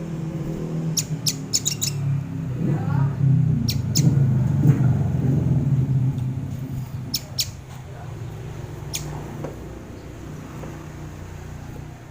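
Sogon (crimson sunbird) giving short, sharp, high chirps, about ten in small clusters of two to four. Under them runs a low rumble that is loudest in the first half and fades away.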